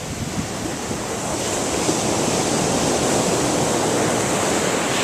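Ocean surf washing onto the beach, with wind on the microphone; the surf swells a little louder about a second and a half in.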